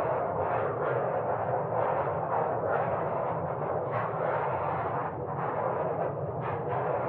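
Fireplace fire burning with a steady, muffled rushing and scattered soft crackles.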